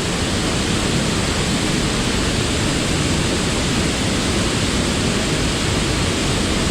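Waterfall and river rapids rushing, a loud, steady, even noise.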